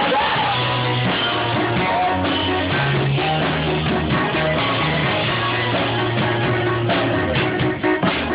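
Rock music with guitar, bass and drums playing steadily, with bass notes changing every second or so.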